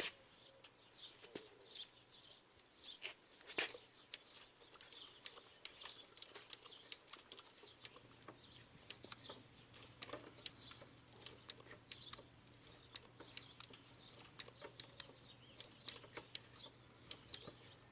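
Faint scattered clicks and rustles of hands working a model engine's fuel system: the tank being pressurized with about ten strokes of a hand primer pump before starting.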